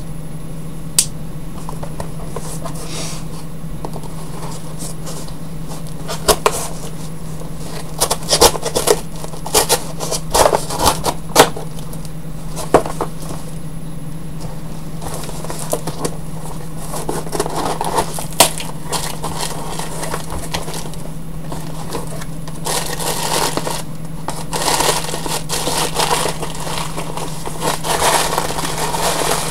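A cardboard shipping box being handled and opened: scattered clicks, knocks and scraping, then a longer stretch of tearing and crinkling packaging in the last several seconds, over a steady low hum.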